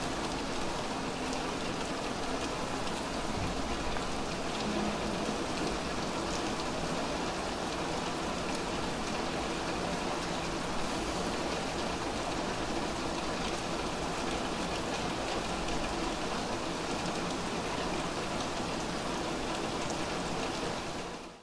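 Steady rain falling on a wet street and pavement: a dense, even hiss with faint scattered drop ticks. It fades out at the very end.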